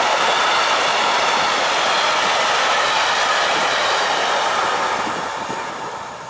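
Freight train of tank-shaped hopper wagons passing at speed, a loud steady noise of steel wheels rolling on the rails. It fades away over the last second or two as the end of the train goes by.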